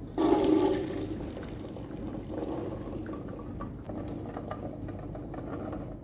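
Water rushing: a sudden loud gush that eases within about a second into a steady flow.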